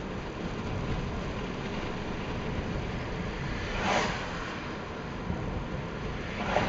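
Steady road and engine noise heard inside a moving car, with two short louder rushes of noise, one about four seconds in and one near the end.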